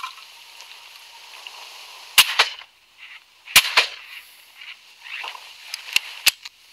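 Two shotgun shots at a high-flying wigeon, about a second and a half apart, each followed closely by a short echo. Two fainter, sharper cracks come near the end.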